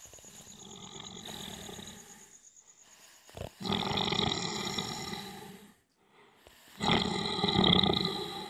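Snoring of a sleeping cartoon old man: three long snores about two seconds each with short gaps between, the first softer and the last two louder.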